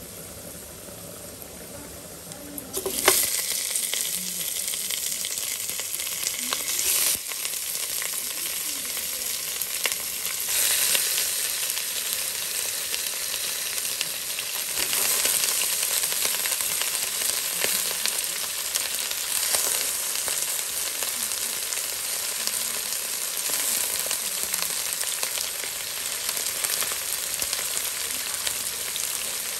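Raw chicken pieces going into hot oil with browned ginger and onion in a stainless steel pot. A faint sizzle jumps to loud frying about three seconds in, and flares up a few more times as more pieces go in.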